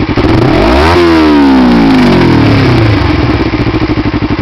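Kawasaki Ninja 250R's parallel-twin engine breathing through a full Tyga exhaust system. It idles with an even pulse, is blipped once sharply about half a second in, and settles back to idle over about two seconds.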